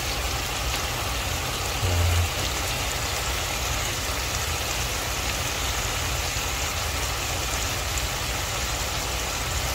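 Shrimp frying in bubbling oil in a frying pan: a steady sizzling hiss, with a short low thump about two seconds in.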